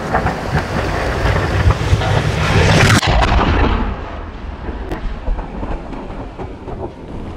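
Launch of a 200 mm (8-inch) aerial firework shell from its mortar: a heavy boom about three seconds in, followed by a long rumble of echoes that slowly fades.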